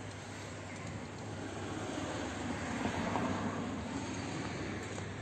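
A passing vehicle: a rushing noise that swells to a peak about three to four seconds in and then fades.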